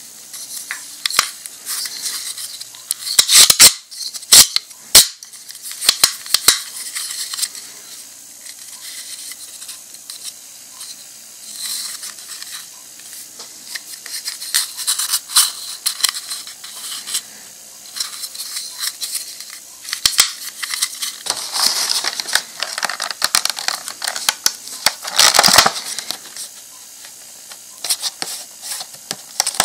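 Close-up handling of a plastic Pez candy dispenser: sharp plastic clicks and taps a few seconds in, then sparse quiet ticks. Near the end comes denser rustling and crackling as its plastic-windowed packaging box is handled.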